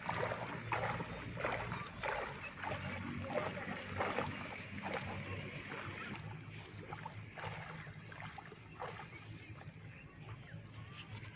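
Water sloshing and splashing with each stride of a person wading waist-deep. The swishes come at an uneven pace and grow fainter toward the end.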